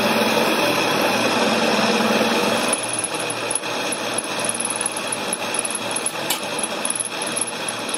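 Drill press running, its twist drill boring down into a stack of steel plates and throwing off curled steel chips. The steady drone drops slightly about three seconds in and turns into a rapid, uneven chatter.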